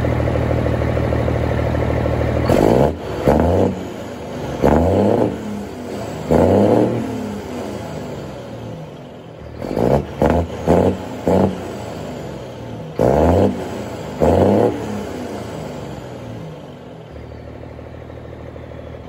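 Cummins M11 inline-six diesel idling, then revved in a series of about ten quick throttle blips, each rising and falling back. It settles back to a steady idle near the end.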